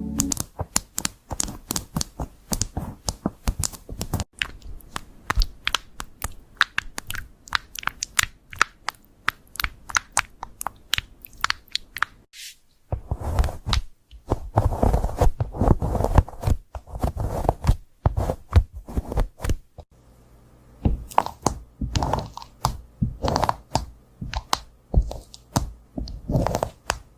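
Computer keyboard being typed on fast: a steady run of clicky keystrokes, with a brief pause about twelve seconds in and a short lull around twenty seconds.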